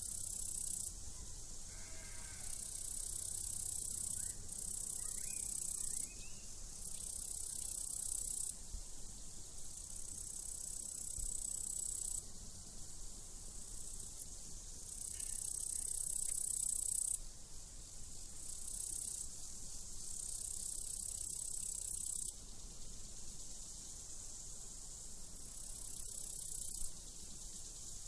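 Crickets chirping in high-pitched trains that start and stop every second or two, with a sheep bleating faintly about two seconds in.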